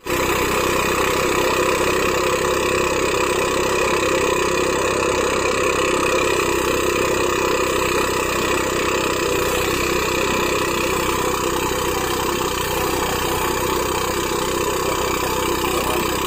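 Motorised rice thresher (perontok padi) running steadily as rice stalks are fed into its drum.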